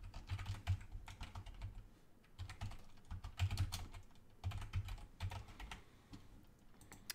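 Typing on a computer keyboard: quick runs of keystroke clicks with short pauses between words, thinning out near the end.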